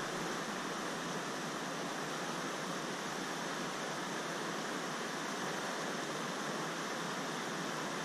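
Steady rush of river water running over rocks: an even hiss that holds level without a break.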